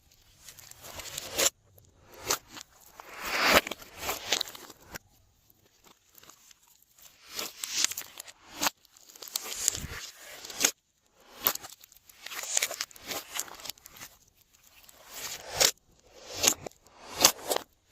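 Glossy slime being worked by hand, with irregular sticky squishes and a few sharp clicks.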